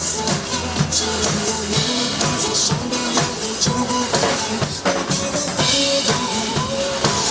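Drum kit played along to a pop backing track: a steady beat of bass drum, snare and cymbals over the recorded song.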